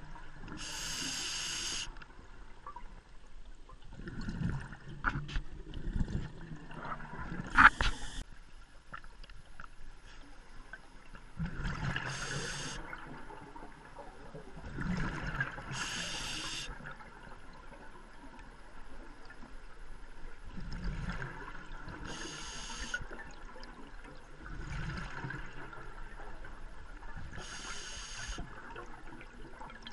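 Scuba diver breathing underwater through a regulator: the hiss of each breath and the bubbling of exhaled air, in turns every few seconds. A few sharp clicks, the loudest about eight seconds in.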